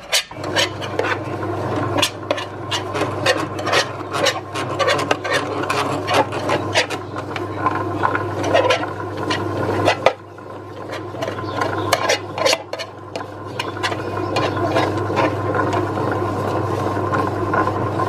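Bread machine kneading pandesal dough on its dough cycle: a steady motor hum starts right at the beginning, with the paddle churning the dough. Over it, a utensil scrapes and rubs dough off the sides of the pan in quick, rasping strokes, thinning out toward the end.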